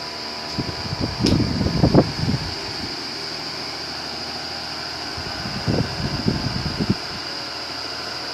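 Mallory Luxo electric fan running with a steady whirr and hum. Low rumbling swells twice, about a second in and again around the sixth second, with a single click near the first.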